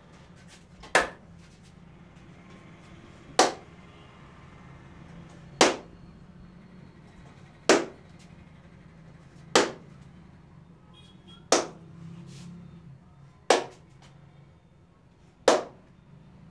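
Sharp hand claps of a clapping head massage, eight of them at an even pace of about one every two seconds, each short and sharp. A low steady hum runs underneath.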